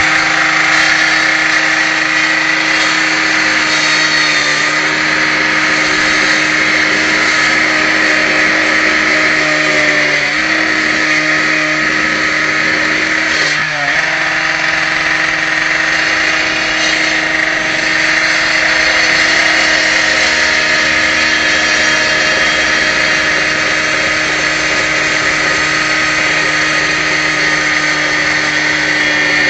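Gas-powered cut-off saw running at a steady high speed for brick removal, its engine note holding level apart from brief dips about ten and fourteen seconds in.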